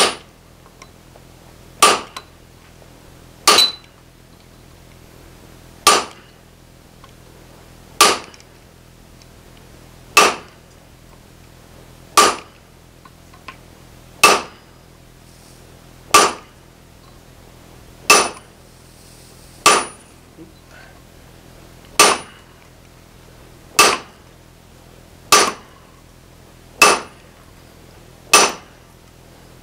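A striker's hammer blows on a handled hot punch, driving an eye hole through a glowing steel hammer blank on the anvil. About sixteen sharp metallic strikes, roughly one every two seconds, come a little faster near the end.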